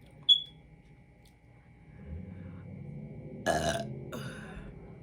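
A woman burping loudly after drinking carbonated soda: a low rumble builds about two seconds in and breaks into a loud burp about halfway through, trailing into a shorter second burst. A short, sharp high click comes just after the start.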